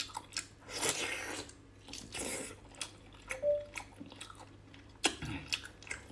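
Close-up biting and chewing of a whole cooked octopus, bitten at the head: wet mouth sounds broken by scattered sharp clicks.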